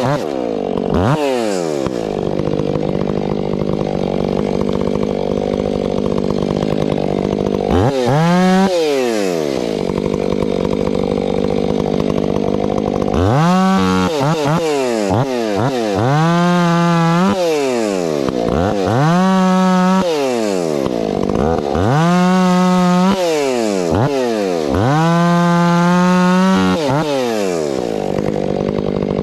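Stihl 500i fuel-injected two-stroke chainsaw bucking a tamarack log into rounds. It idles for several seconds, then revs up and drops back to idle about six times, holding high revs briefly during each cut.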